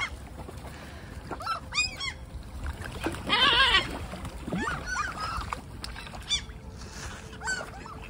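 A flock of black-headed gulls calling, with harsh short screeching calls coming again and again, loudest in a dense burst of several birds about three seconds in.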